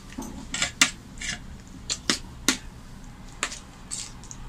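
Steel spoon clinking and scraping against a metal bowl while scooping potato curry: several sharp, irregular clinks.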